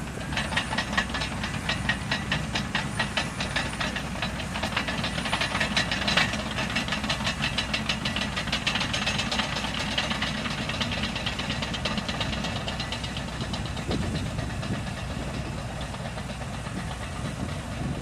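Caterpillar earthmovers on sand, a D6T crawler dozer and a 966M wheel loader, their diesel engines running under a rapid, even clatter. The clatter is densest in the first half and eases later on.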